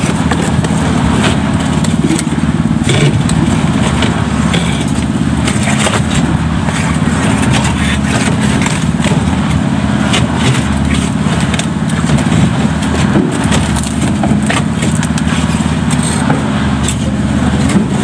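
A small engine running steadily, with scattered knocks and clanks of steel concrete buckets being handled and set down on the rebar.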